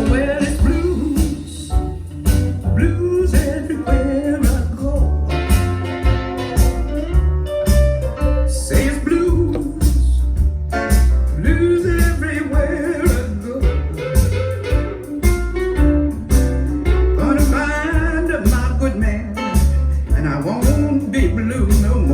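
A song with a singing voice, guitar and a heavy pulsing bass line, played back through hi-fi loudspeakers.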